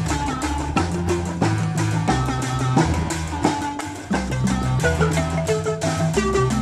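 A marimba band playing: several wooden-keyed marimbas with gourd resonators struck with mallets in a quick, repeating pattern over deep bass-marimba notes, with drums keeping the beat. The music drops briefly just after the fourth second.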